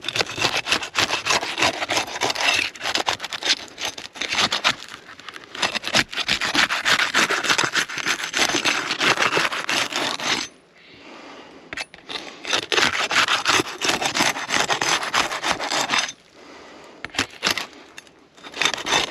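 A tool scraping and rasping under laminate asphalt shingles to break their sealant strips, in quick repeated strokes with two short pauses.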